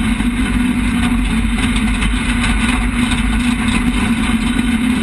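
Drag race car's engine running steadily at low speed, heard from inside the car, as an even drone with no revving.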